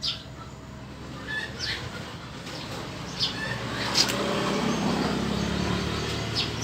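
Honda XRM110 single-cylinder four-stroke engine kicked over with a sharp knock about four seconds in, then catching and running on a newly wired four-pin Skygo CDI. Birds chirp throughout.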